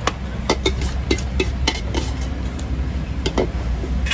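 Irregular sharp taps and clinks of a serving spoon against a steel pot and foil plates while bhel is dished out, over a steady low rumble of street traffic.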